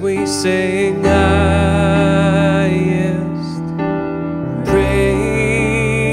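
Live worship song music: sustained keyboard chords over deep bass notes that change about a second in and again near the end, with a held, wavering melody line above.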